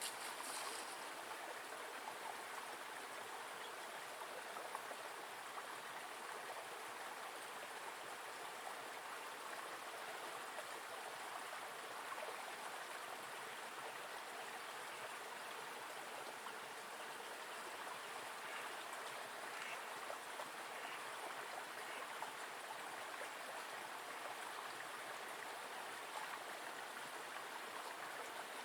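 Small forest river flowing: a steady, even rush of running water.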